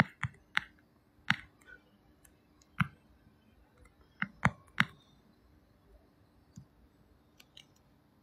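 Irregular light clicks and taps of fingers handling the phone close to its microphone, about a dozen, most of them in the first five seconds and a few fainter ones near the end.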